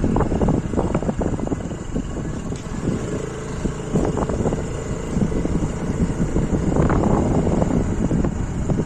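Wind buffeting the microphone on a moving scooter, over the steady running of the scooter's small engine, with stronger gusts a few seconds in and again near the end.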